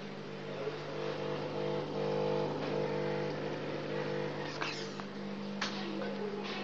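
Steady hum of an aquarium pump motor, with a few faint clicks in the second half.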